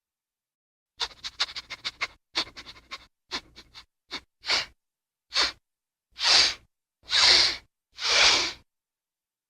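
Cartoon dog sniffing sound effect: a quick flurry of short sniffs, then five longer breaths about a second apart.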